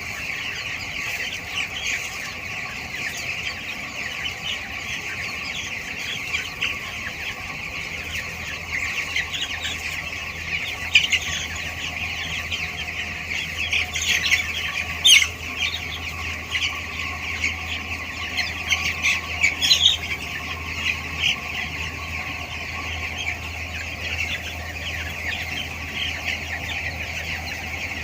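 A large flock of two-week-old broiler chicks peeping without pause, a dense mass of high chirps with a few louder single calls standing out now and then, over a steady low hum that grows stronger about a third of the way through.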